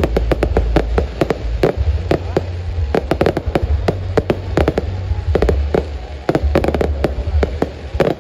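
Fireworks display going off: a rapid, irregular string of sharp bangs and crackles, several a second.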